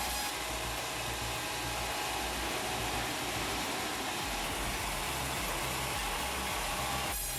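Wood-processing machinery running with a steady, even noise over a low pulsing rumble, the sound changing abruptly just after the start and again near the end.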